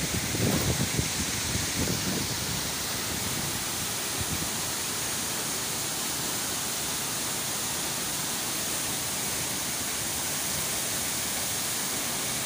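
Steady rushing roar of a tall waterfall in heavy flow, swollen with typhoon rain, with some low rumbling bumps in the first couple of seconds.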